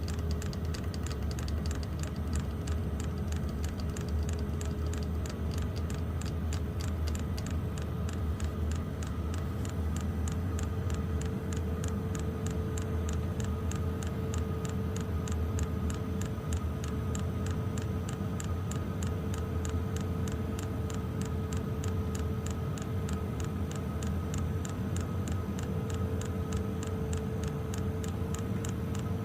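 A Wippro diesel air heater running: its fuel metering pump clicks in a fast, even rhythm over the steady whir of the blower, whose tone creeps slightly higher. The clicking is the pump delivering fuel, the sign that the no-fuel fault behind the E-8 and E-10 codes is cured and the heater has lit.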